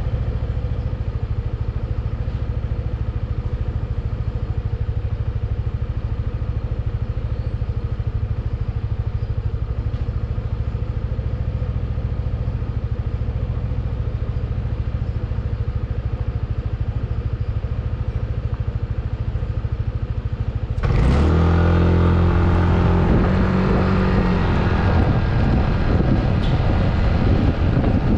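Yamaha NMAX scooter's single-cylinder engine idling steadily, then about 21 seconds in it revs up as the scooter pulls away, with wind and road noise rising on the helmet or body camera microphone.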